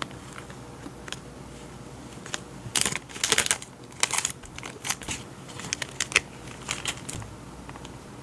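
Paper and packaging being handled, crinkling and rustling in a run of short, irregular bursts, the loudest about three seconds in.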